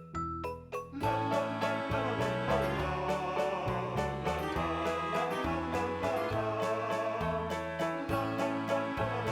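Background music: a light plucked melody, joined about a second in by a fuller arrangement with a steady beat.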